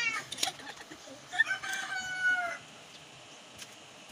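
A rooster crowing once, starting about a second in and held for a little over a second, with a few light clicks around it.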